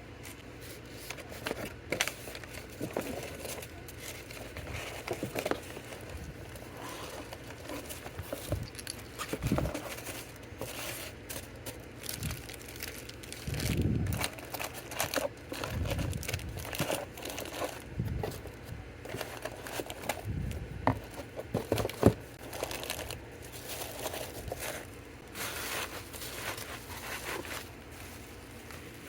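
Packaging materials crinkling and rustling as orders are packed by hand, with scattered taps and clicks and one sharp knock about 22 seconds in.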